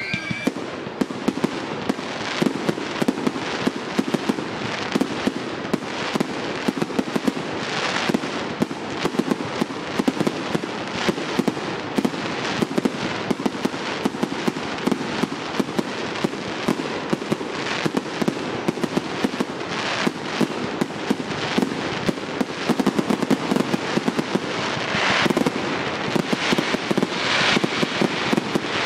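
Fireworks display going off: a dense, continuous crackle of pops and bangs from bursting shells and rising comets. Louder clusters of crackling come about eight seconds in and again near the end.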